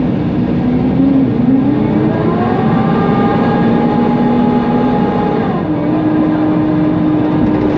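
Inside a Mercedes-Benz Conecto NGT city bus under way: its CNG OM936G engine and loud cooling fan run under a steady road noise. The engine pitch rises between about one and a half and two and a half seconds in, holds, then drops suddenly about five and a half seconds in as the ZF automatic gearbox shifts up.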